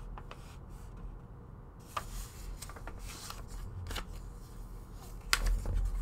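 Paper certificate of authenticity being handled and folded: intermittent rustling and crinkling with short sharp clicks, the loudest handling noises near the end.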